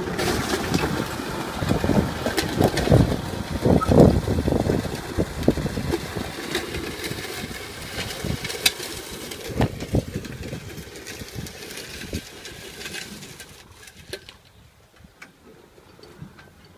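Kubota tractor's diesel engine working under load while pulling a disc plough through dry soil, with irregular knocks and rattles. The sound fades as the tractor pulls away and drops off sharply about 14 seconds in.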